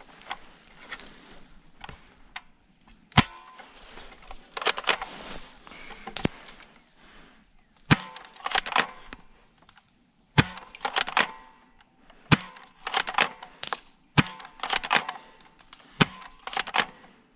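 Airsoft gun firing single shots every second or two, each sharp snap followed by a short clatter.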